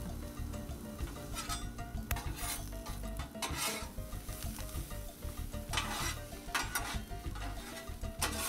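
Metal spatulas scraping across the steel top of a Blackstone griddle in a series of separate strokes, turning sliced mushrooms and onions, over a low sizzle of frying.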